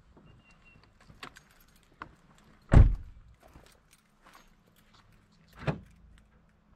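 Scattered light clicks and rattles, with two heavier knocks about three seconds apart, the first the louder: things being handled close to the microphone.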